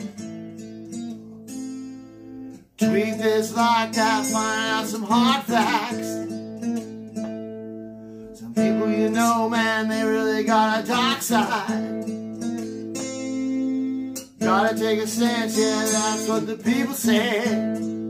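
Gibson Gospel acoustic guitar playing chords, with a man singing over it. The singing comes in three phrases, the first about three seconds in, with the guitar alone between them.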